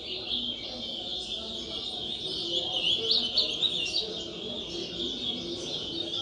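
Many caged songbirds of a bird-singing competition ring chirping and singing at once in a dense, unbroken chorus, busiest and loudest about halfway through, with people's voices murmuring underneath.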